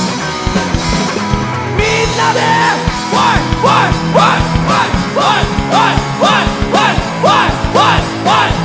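Live rock band playing loud, with electric bass, electric guitar and drums. Cymbals come in about two seconds in, followed by a quickly repeated rising-and-falling lead line.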